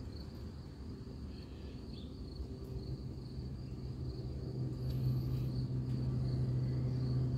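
Bumblebee buzzing with a steady low hum as it works a dahlia bloom, growing louder about three seconds in. A faint, steady high chirring of crickets runs underneath.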